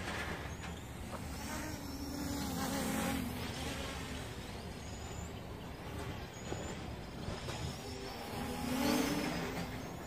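Road traffic: a motor vehicle's engine swells and fades about two seconds in, and another near the end, over a steady low rumble.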